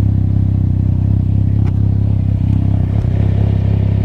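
Can-Am Ryker Rally's three-cylinder engine idling steadily through an aftermarket Treal Performance exhaust.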